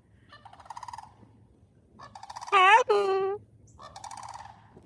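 Sandhill cranes calling in rolling, rattling bugles, three bouts in a row, the calls of a pair in what looks like a courtship display. About two and a half seconds in, a louder wavering, high-pitched cry rises over them.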